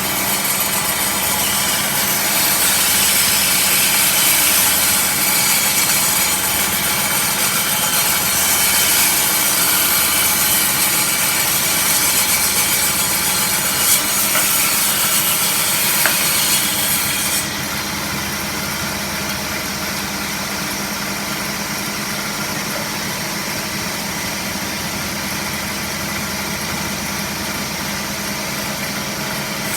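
Power saw motor running steadily while cutting through wood, with a loud hiss that ends abruptly a little past halfway, after which the motor runs on without load.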